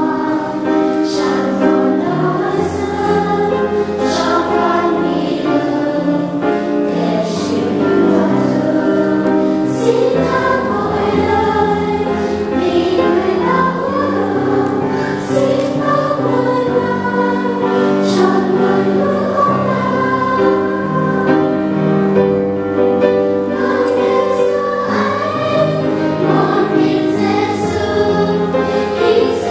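Children's and youth choir singing a Vietnamese hymn, with held low accompaniment notes beneath the voices that change every few seconds.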